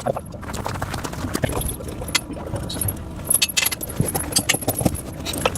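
Steel pewag Doppelspur tractor tire chains being handled: links clinking and jangling against each other in a run of sharp metallic clinks, which come thicker and louder about halfway through.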